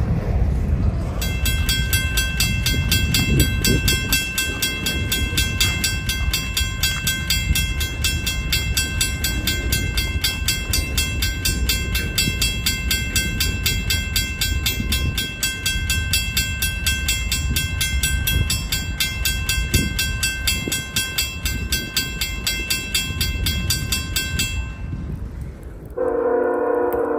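Freight train of covered hopper cars rolling past with a low rumble. From about a second in, a railroad crossing bell rings rapidly and steadily over it, then stops near the end, and a short steady tone starts just before the close.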